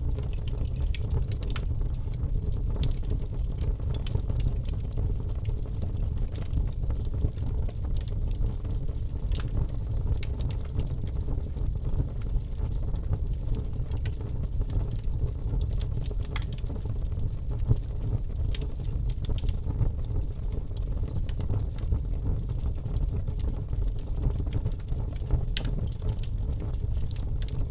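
Open wood fire burning, with frequent sharp crackles and pops scattered irregularly over a steady low rumble.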